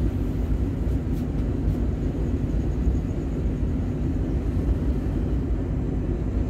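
Steady low rumble of a car's engine and tyres on the road, heard from inside the cabin.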